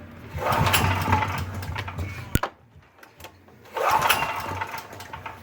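A McCulloch FG5700BK generator's engine, freshly converted to run on LP gas, being pull-started: two pulls on the recoil starter, each a burst of cranking engine noise lasting a second or two, with a quiet gap between, before it catches and runs.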